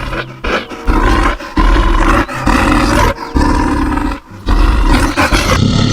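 A bear roaring, a run of about six rough roars with short breaks between them, played as an animal sound effect.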